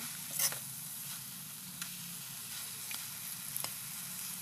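Pork and alugbati greens sautéing in a wok with a steady sizzle. A spatula scrapes across the pan about half a second in, followed by a few light clicks of the spatula against the wok as the mixture is stirred.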